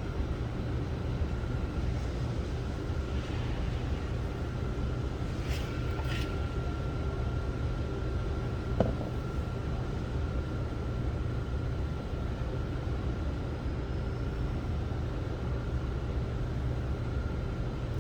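A steady low mechanical rumble with a faint, even high whine over it, and a single light click about nine seconds in.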